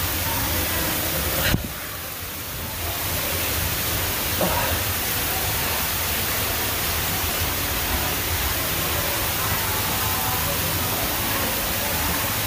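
Steady rush of flowing water from a stream in a tight, wet rock passage. A sharp knock comes about a second and a half in, and the sound is briefly muffled just after it.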